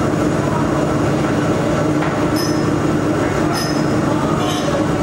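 Steady mechanical running noise with a constant low hum from an automatic fiber laser welding machine as it welds a stainless steel tube turning in its chuck, with faint short high ticks about once a second.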